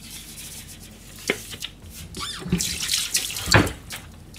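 Wet handling at a stainless steel kitchen sink: raw chicken offal and a foam meat tray worked over a steel bowl. A click about a second in, then a spell of wet splashy noise ending in a sharp knock about three and a half seconds in.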